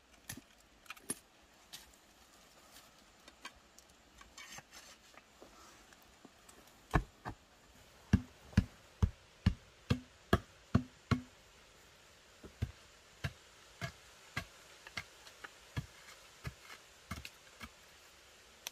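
Repeated blows of a hand tool on wood: a few light knocks, then about seven heavy strikes, roughly two a second, each with a short hollow ring, then a series of lighter strikes about every half second.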